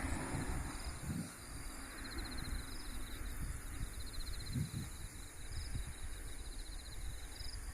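Singing insects chirping in rapid pulsed trills, with short higher trills every couple of seconds, over low, gusty rumbling of wind on the microphone.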